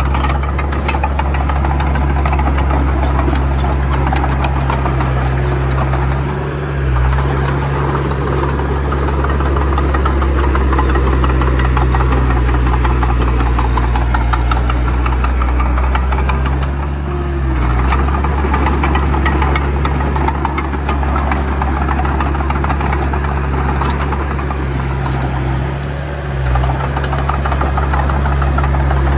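Bulldozer's diesel engine running steadily under load with a knocking clatter. Its deep note dips briefly three times.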